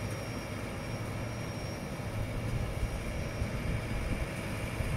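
Sonalika 90 tractor's engine running steadily under load as it pulls a Claas Rollant 520 RF round baler picking up straw, a constant low drone with the baler's mechanical noise.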